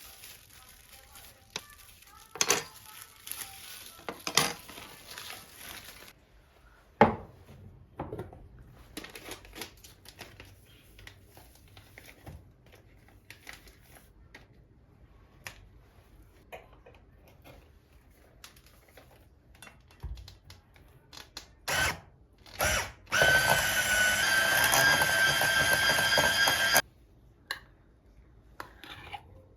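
Kitchen utensils knocking and clinking, then a small electric kitchen appliance motor runs at a steady pitch for about four seconds near the end and cuts off suddenly.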